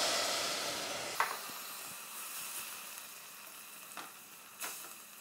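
White wine sizzling on toasted Carnaroli rice in a hot stainless steel pot, the sizzle loudest at first and fading steadily as the wine boils off. A wooden utensil stirs the rice and knocks lightly against the pot a few times.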